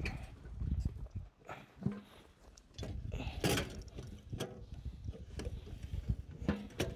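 Clicks and knocks of a hard plastic case being carried and handled, with a louder knock about halfway through.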